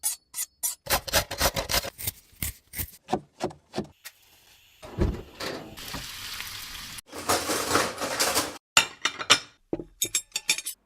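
Kitchen knife chopping on a cutting board in quick, uneven strokes. The knocks stop for a few seconds of steady sizzling hiss in the middle, then start again near the end.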